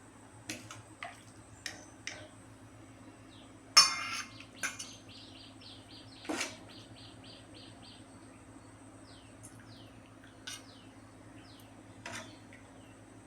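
Utensils clinking against the pot and bowl as hot rasam is ladled out, a few light knocks with the loudest about four seconds in. A bird chirps in the background: a quick run of repeated chirps, then a few falling calls.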